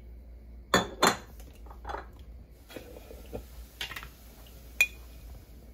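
A metal spoon and glass spice jars being handled, making a few sharp clinks and knocks. There are two loud knocks close together about a second in, lighter clinks through the middle, and one clink near the end that rings briefly.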